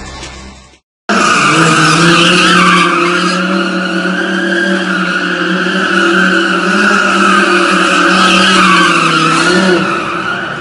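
Music fades out and, after a brief gap, a supercar engine runs at steady high revs while the car drifts in tight circles with tyres skidding. The revs ease slightly near the end.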